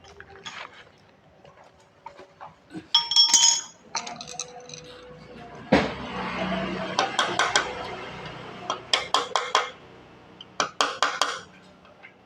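Metal tools and small parts clinking and rattling on a hard surface during a water pump repair, with one ringing metallic clink about three seconds in, a knock just before six seconds, and several runs of quick sharp clicks after it.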